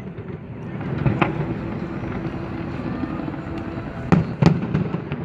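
Aerial fireworks bursting: one bang about a second in, then two more in quick succession near the end, over the steady murmur of the watching crowd.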